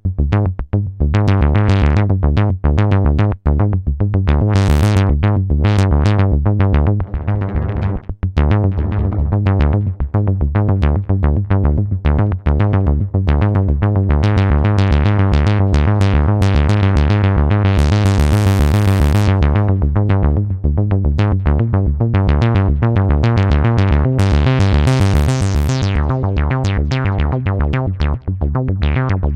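Modal Cobalt 5S synthesizer playing a fast repeating sequenced pattern over a steady deep bass, with bright filter-swept notes opening up briefly a few times.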